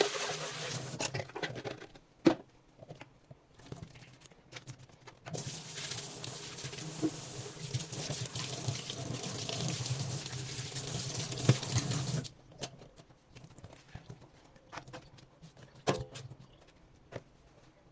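Tap water running into a sink as a blender jar is washed, in two stretches: briefly at the start and again for about seven seconds in the middle. Between and after the running water come scattered knocks and clinks from the jar being handled.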